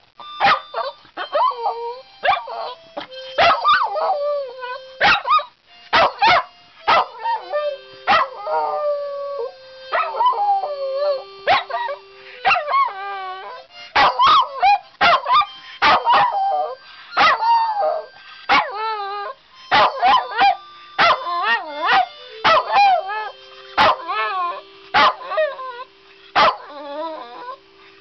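A small terrier howling along to music: a long run of wavering, rising and falling howls broken by short yips, over steady held musical notes.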